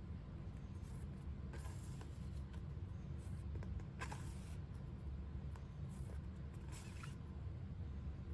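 Stiff photo prints being shuffled by hand, each one slid off the stack with a brief papery swish, three times, over a low steady hum.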